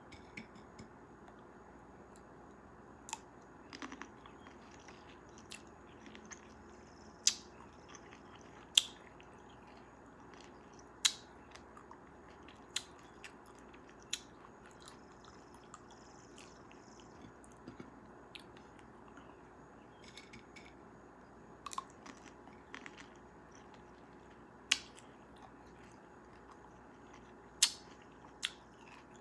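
Close-miked chewing of cherries, with wet mouth sounds and sharp, crisp bite clicks every few seconds.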